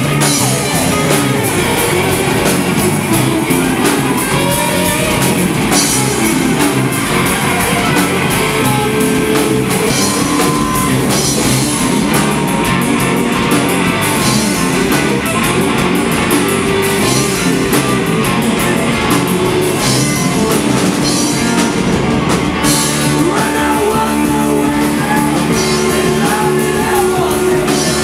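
Live stoner rock band playing loud: electric guitars over a drum kit, the sound dense and unbroken.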